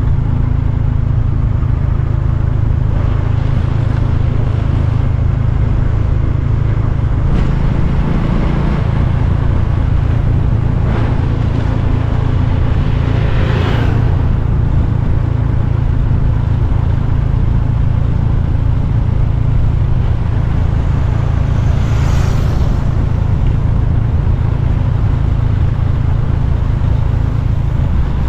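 A motorcycle being ridden, heard from the rider's camera: a steady low engine and wind rumble, with a few brief whooshes, the loudest about 13 and 22 seconds in.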